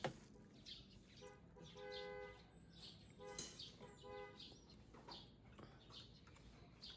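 Faint bird calls: scattered short chirps, and two steady, even-pitched calls, one about a second in and one about three seconds in.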